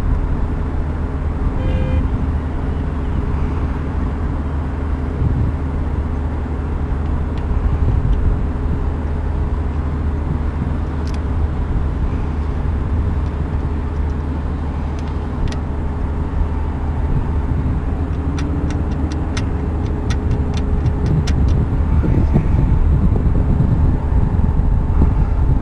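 Steady low machinery hum with several held tones and a low rumble under it. Light metallic clicks from small parts being handled: a couple on their own, then a quick run of about four a second for three seconds in the later part.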